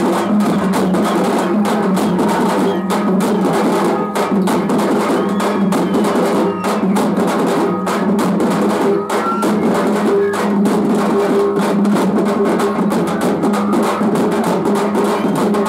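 A troupe of drummers beating large shoulder-slung drums with sticks in a fast, dense, unbroken rhythm.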